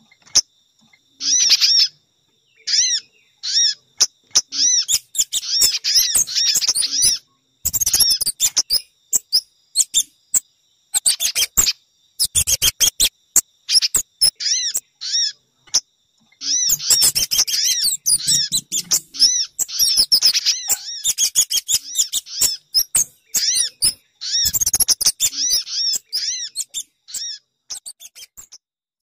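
Bird-lure recording of small songbirds calling: quick series of sharp, repeated chirps with short pauses between, broken by dense dry chattering rattles about a quarter of the way in and again a little before the middle.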